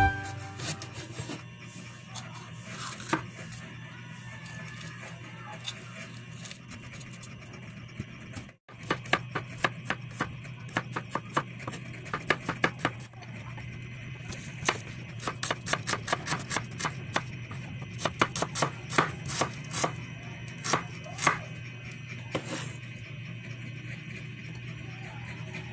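Chef's knife chopping vegetables on a wooden cutting board in quick, uneven strokes: first a red bell pepper, then garlic cloves being sliced. The sound breaks off briefly about a third of the way in, and the strokes come thick and fast through the middle.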